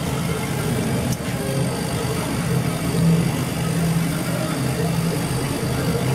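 HT-1390 CO2 laser cutting machine running while it cuts plastic protective film: a steady low machine hum.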